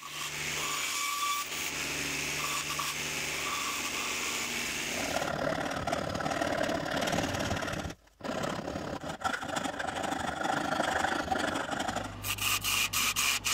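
Bandsaw running and cutting through hardwood, then the rough rasping of a hand file on wood, then a wood lathe running with rapid regular ticking near the end.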